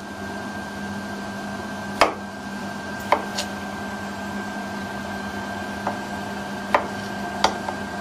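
Kitchen knife cutting a raw potato into chunks on a plastic cutting board: about six sharp, irregularly spaced knocks as the blade goes through and hits the board, over a steady low hum.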